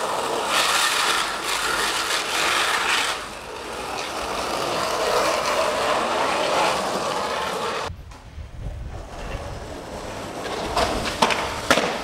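Skateboard wheels rolling over rough asphalt with a steady, grinding hiss. It cuts off suddenly before the eight-second mark. Near the end a few sharp knocks of the board on the street follow.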